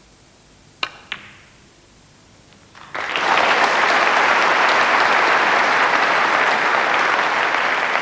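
Two sharp clicks of snooker balls about a second in: the cue tip striking the cue ball, then the cue ball striking the blue to pot it. From about three seconds in a steady, loud round of audience applause.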